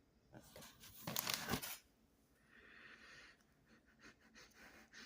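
A short burst of rustling, crinkling noise about a second in, then a few faint scratchy sounds; quiet overall.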